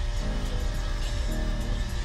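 Music with a heavy, steady bass line.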